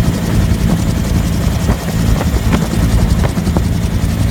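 Bell UH-1 "Huey" helicopter in flight, heard from aboard: the loud, steady drone of its turbine engine and rotor.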